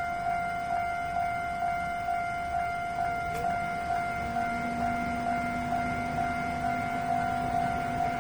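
Japanese railway level-crossing warning bell ringing, a repeating electronic ding just under twice a second, the signal that a train is approaching the crossing.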